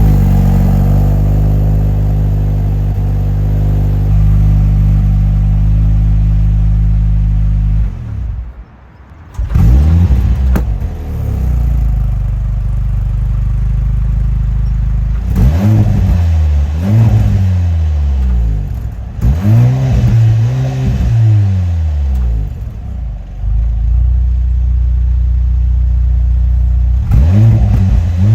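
Mercedes-AMG C43 4MATIC saloon's engine and exhaust idling steadily, then, after a brief drop about eight seconds in, revved in a series of quick throttle blips, each rising and falling in pitch.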